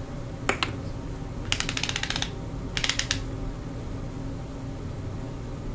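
Makeup bottles and caps being handled: a single click, then two short runs of rapid clicking, each under a second long.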